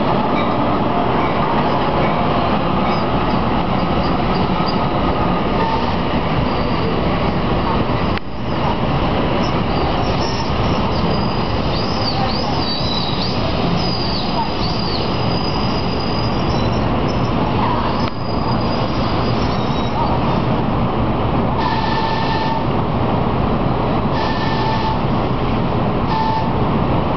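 NJ Transit train of Multilevel coaches behind an ALP-46 electric locomotive rolling past, a steady loud rumble of wheels on rail as it slows into the station. A wavering high wheel squeal comes about halfway through, and a few short squeals come near the end.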